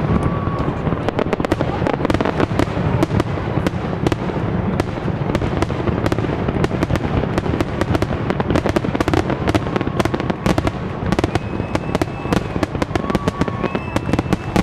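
Aerial fireworks display: a dense, unbroken barrage of shell bursts, many bangs a second with no pause. A few short high whistles sound over it in the last few seconds.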